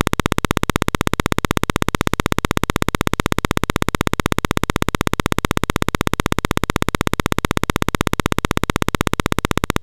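A steady, rapid, even clicking buzz, about nine clicks a second, that never changes.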